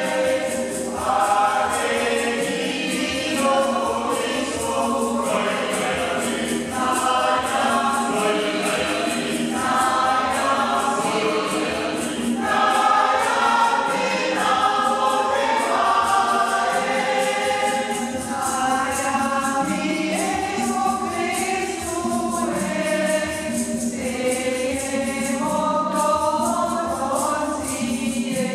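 Mixed choir singing a gospel song with many voices together, accompanied by hand-played conga drums keeping a steady beat.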